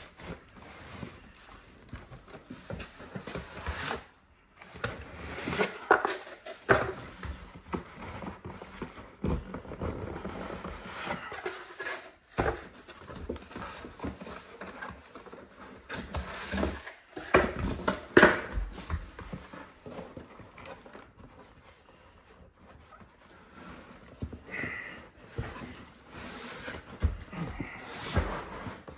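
Cardboard box and a stretch-wrapped package rubbing and scraping together as a heavy, tightly fitting unit is worked out of the box, with irregular rustles and knocks.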